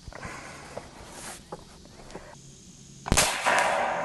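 Seneca Dragon Claw .50 caliber big-bore PCP air rifle fired once on high power about three seconds in: a sharp crack followed by a rush of sound that fades over a second or so. Before the shot there are a few light handling clicks as the rifle is loaded.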